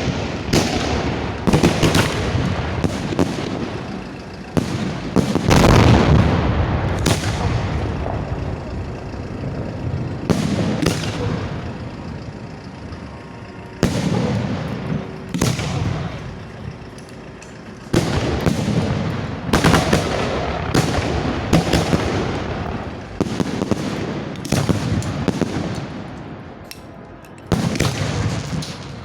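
Fireworks display going off close by: a rapid, irregular series of shell launches and bursting booms, coming in clusters with short lulls between.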